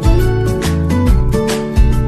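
Background music with a steady beat, strong low notes about once a second.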